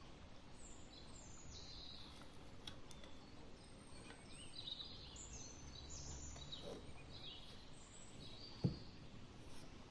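Faint birds chirping: a string of short, high, falling chirps over a low background hiss, with a single sharp knock near the end.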